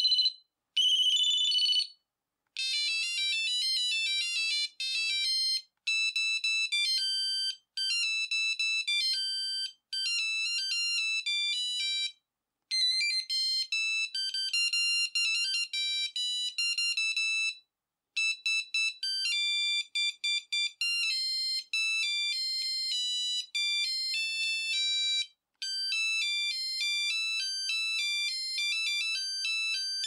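Ericsson A1018s mobile phone ringtones previewed one after another through its small speaker. First come two short bursts of a high two-tone trill ring, then a series of beeping single-note melodies, each stopping after a few seconds with a short gap before the next begins.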